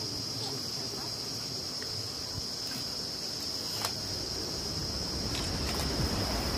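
Insects shrilling in one steady, high-pitched drone over a low outdoor murmur.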